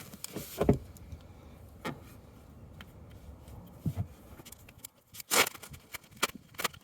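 A tool working the fill plug out of a Renault Megane 3 RS 275 gearbox: a few scattered metal clicks and knocks, the loudest a brief clatter about five and a half seconds in.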